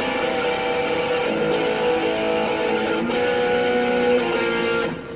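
Electric guitar with distortion on, played through an amp: strummed chords ringing out and changing every second or so, then cut off suddenly just before the end.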